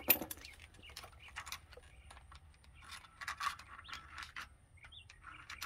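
Metal-on-metal clicks and scrapes as a screwdriver and gloved hands work the threaded bearing retainer nut round on the rear hub of a Ford F-350 dually axle, unscrewing it. A sharp click right at the start is the loudest, followed by light scattered ticks and scrapes.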